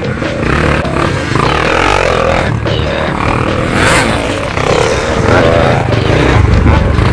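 Off-road motorcycle engines revving as the bikes climb a rocky rise, the engine note rising and falling with the throttle.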